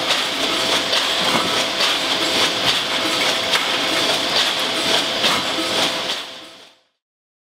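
Can line noise: empty tinplate aerosol can bodies clinking and rattling against each other on a belt conveyor, over a steady machine hum. It fades out about six and a half seconds in.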